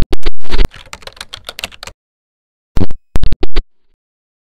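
A rapid cluster of very loud, sharp clicks and crackle, then a pause and four more clicks about three seconds in: a digital audio glitch.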